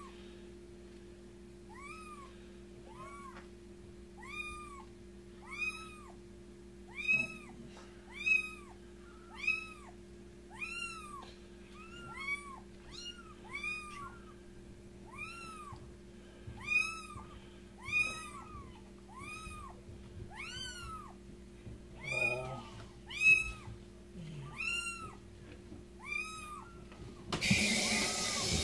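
Young kitten mewing over and over while being washed in a sink, about one high-pitched cry a second, each rising then falling in pitch. Near the end a kitchen tap starts running.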